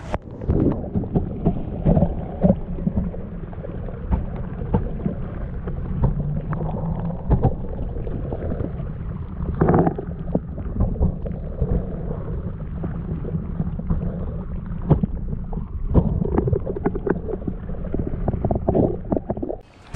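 Water sloshing and rumbling around a camera held under the surface in shallow water, heard dull and muffled, with frequent small knocks and clicks.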